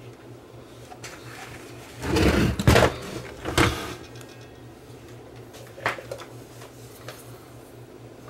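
Plastic cabinet of a small portable TV being turned over and set down on a workbench: a loud scraping clunk about two seconds in, another knock a second later, then a couple of light clicks.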